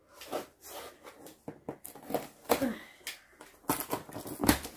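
A kitchen knife slitting the packing tape along a cardboard box: a run of irregular scratching and tearing sounds, loudest near the end.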